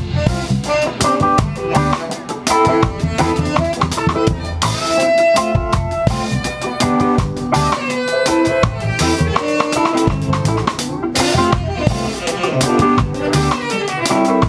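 Live band playing, with the drum kit heard up close and loudest (kick, snare and cymbal hits on a steady beat) over electric guitars.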